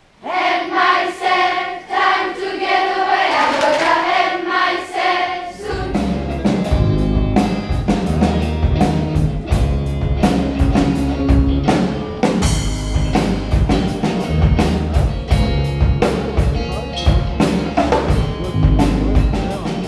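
A children's choir sings sustained chords for about six seconds. Then a rock band with a drum kit and bass comes in and plays steadily.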